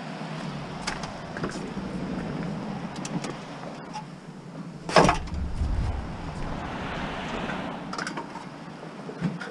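A painted scrap-metal post dropped onto the floor of a minivan: one loud thump and clatter about halfway through, with lighter knocks and clicks of the metal being handled before and after.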